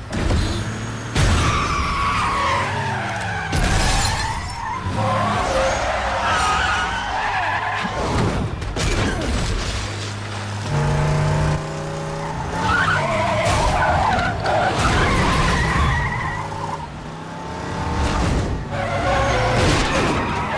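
Film chase sound mix of car engines revving and tyres skidding, pitch gliding up and down, over a low rumble. Sudden hits cut in several times.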